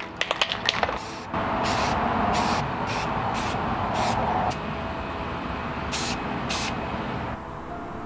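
Small RC-plane motor spinning a foam-board saw blade: a steady whir starts about a second in and stops near the end, with several short hissing bursts over it. A few clicks come before it starts.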